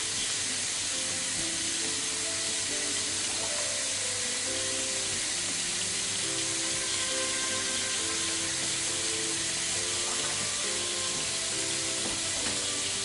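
Bean sprouts, cabbage and onion frying in salad oil in a frying pan, a steady even sizzle. Soft background music with a simple melody of single held notes plays underneath.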